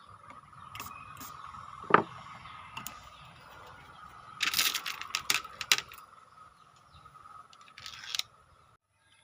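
Mini PVC toy gun being handled and worked: plastic clicks and knocks, with one sharp snap about two seconds in and a quick run of clicks around the middle. A faint steady high tone sits underneath.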